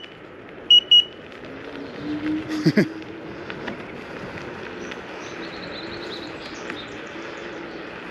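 Electric scooter horn giving two short, quick high-pitched beeps about a second in. This is followed by the steady hum and rolling noise of the scooter riding along.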